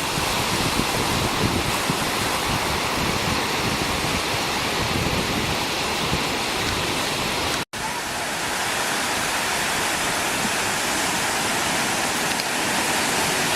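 Steady rushing noise that breaks off for an instant about halfway through, then carries on as a smoother hiss.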